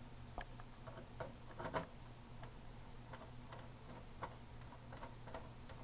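Irregular light clicks and ticks of screws and a screwdriver being worked into the plastic back cover of an LCD TV during reassembly, over a faint steady low hum.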